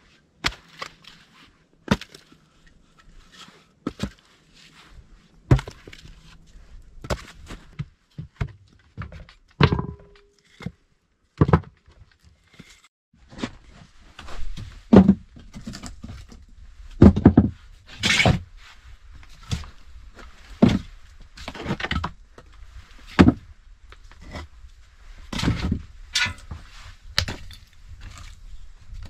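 A series of about twenty irregular knocks and thuds, roughly one every second or two, some sharp and loud.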